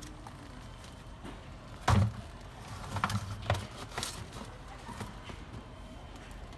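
A single thump about two seconds in, then a string of lighter knocks and clunks as boxes are handled and moved around on the bottom shelf of a glass display case.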